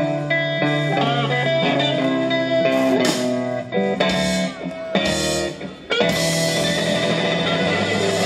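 Blues-rock band playing live, with electric guitar lines and bent notes over upright double bass and drums. About six seconds in the sound drops briefly, then the full band comes back in loud and dense.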